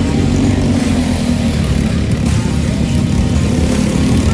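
Racing kart engine running at speed, heard from on board the kart as a steady, loud drone.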